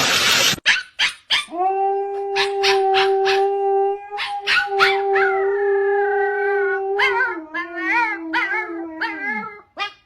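A dog yips several times in quick succession, then howls in a wavering, rising and falling voice over a long steady held tone.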